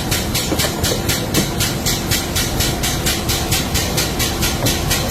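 Industrial sludge-and-chip vacuum for CNC machines running, a loud hiss pulsing evenly about four to five times a second over a steady low rumble as it sucks up coolant sludge and fine metal chips.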